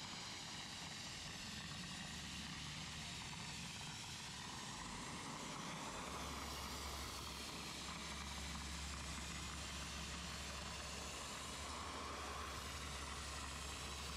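Dry ice blaster nozzle jetting compressed air and dry ice pellets at engine-bay plastics: a steady hiss, with a low hum underneath that grows stronger about six seconds in.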